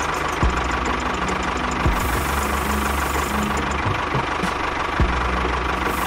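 Motor of a homemade miniature bulldozer tractor running steadily with a constant whine as it pushes sand, with a few low thumps.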